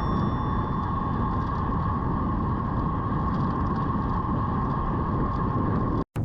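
Steady rushing ride noise, wind and road, while riding a road bike, with a constant mid-pitched hum. It cuts off abruptly near the end, and a music note begins.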